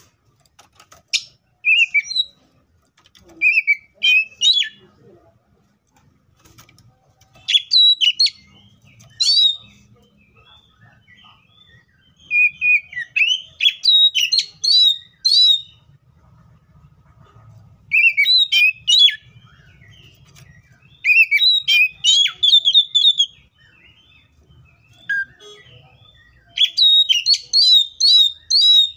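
Oriental magpie-robin singing: short bursts of quick, varied high notes, separated by pauses of a second or more.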